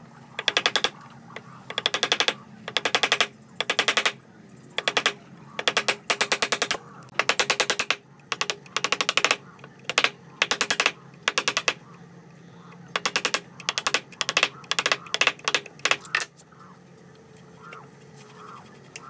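A wood chisel being struck in quick runs of rapid taps as it chops into a hardwood joint line, the runs separated by short pauses. The tapping stops near the end.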